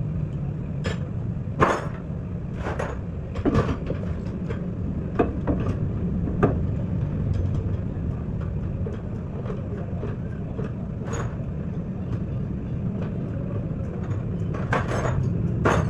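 Workshop noise: a steady low rumble with scattered sharp knocks and clinks, the handling of tools and suspension parts.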